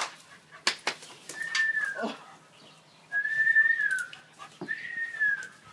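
A dog whining: three high, thin whines of about a second each, the first about a second and a half in, some dropping in pitch at the end. A few light clicks come in the first two seconds.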